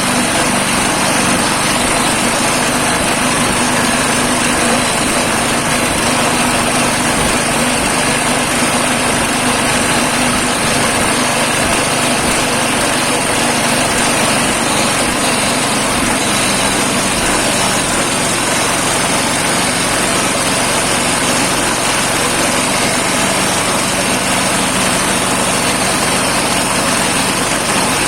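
Small engine of a home-built two-wheel-drive motorcycle running steadily.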